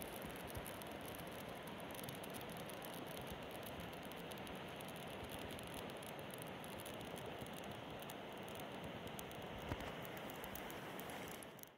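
Small fire crackling with fine, rapid ticks over a steady rush of flowing river water, with one soft knock near the end.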